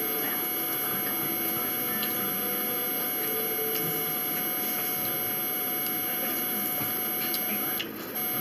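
Steady electrical hum and hiss of room noise, with a few faint clicks; the level dips briefly near the end.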